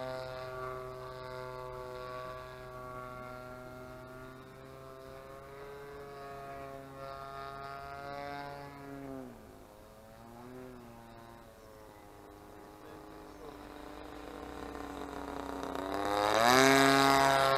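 DLE 20cc single-cylinder two-stroke gasoline engine, fitted with a chainsaw carburettor, running in a Sbach 342 RC plane in flight. Its drone drops in pitch and fades about nine seconds in and stays low for a few seconds. Then it climbs steeply in pitch and grows loudest near the end as the plane comes closer.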